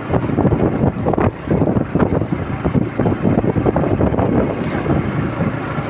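Wind buffeting the microphone of a phone camera on a moving motorcycle: a loud, irregular low rush that masks the engine and road noise underneath.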